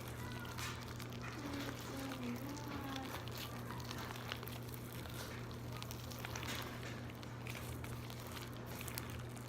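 Soft wet squelches and clicks of soapy borax slime being kneaded and stretched by hand, over a steady low hum.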